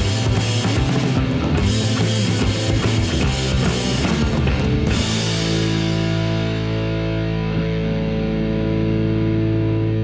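Background rock music with drums and guitar; about halfway through, the drums stop and a held chord rings on.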